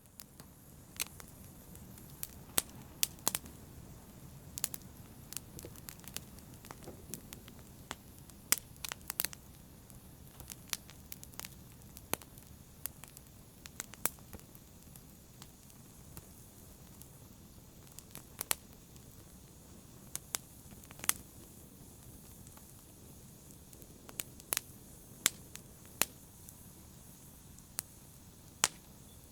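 Open fire crackling: irregular sharp pops and snaps, a few of them loud, over a steady low rumble of the flames.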